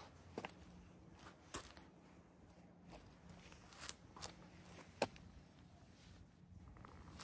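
Quiet outdoor surroundings broken by a few separate soft clicks and scuffs: footsteps and handling on bare rock and dry leaves.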